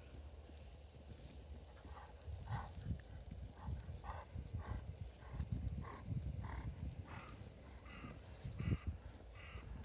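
A puppy yapping over and over, about two short yaps a second, higher-pitched toward the end, over thuds and crunching from paws in the snow.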